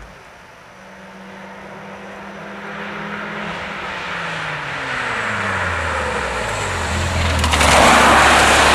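Rally car (orange BMW E30 saloon) approaching, its engine note growing steadily louder and falling in pitch as it slows for a bend. Near the end it slides past close by with a loud rush of tyre and gravel noise.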